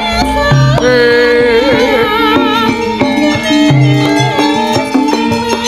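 Javanese gamelan playing for a wayang kulit show: held metallophone tones and a wavering melodic line over the top in the first half, with short low drum strokes now and then.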